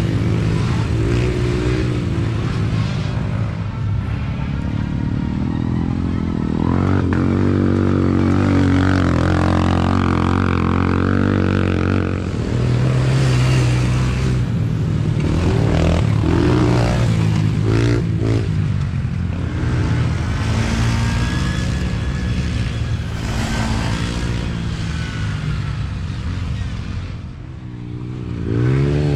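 Several youth mini ATVs racing past on a dirt trail, their small engines revving up and down as they come by one after another, with a brief lull near the end before the next one closes in.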